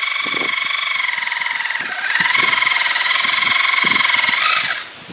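Battery-powered reciprocating saw (Sawzall) running, a steady high motor whine with a fast buzz from the stroking blade. It gets louder about two seconds in and cuts off just before the end, over a few light knocks.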